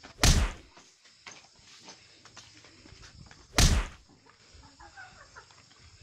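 Two loud impact thuds about three seconds apart, the hits of a staged fight: a kick, then a blow to the head.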